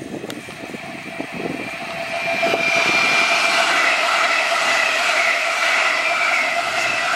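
Munich S-Bahn class 423 electric multiple unit passing close by. Its wheel and rail noise grows loud about two seconds in, with a steady high whine from its electric traction drive.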